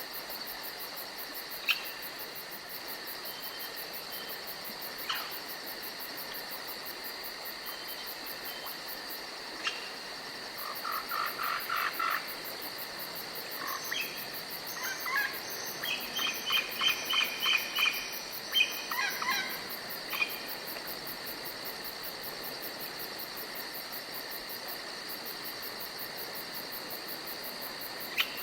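A steady chorus of insects, with fast, even shrilling high up, runs throughout. Partway through, two runs of rapid repeated chirping calls from a bird or frog come in, and a few sharp ticks sound now and then.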